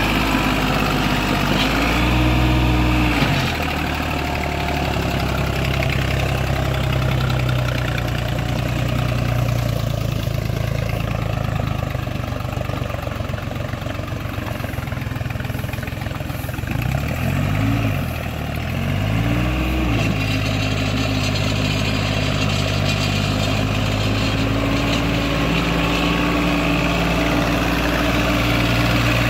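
Deutz-Fahr Agrolux 50 tractor's diesel engine working under load as the 4wd tractor pushes through deep mud. It runs steadily, with the revs rising and falling about two seconds in and twice more about two-thirds of the way through.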